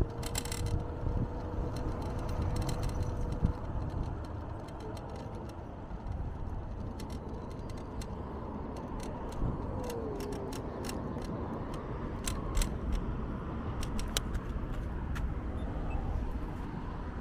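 Electric scooter riding over pavement: a steady low rumble of tyres and wind on the microphone, with frequent sharp rattling clicks. A steady hum stops about three and a half seconds in.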